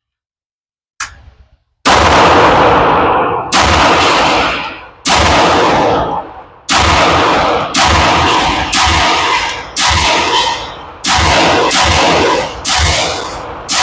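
Alpha Foxtrot Romulus 2011 pistol firing 124-grain rounds at a steady slow pace: about a dozen shots roughly a second apart, each ringing out with a long echo. It cycles through the magazine without a hiccup.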